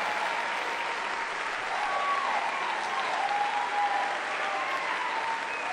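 An audience applauding steadily, just after a song has ended.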